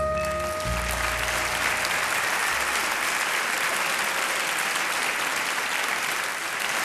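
Audience applauding, a dense steady clapping. The last held notes of the backing music ring out and fade under it in the first second or two.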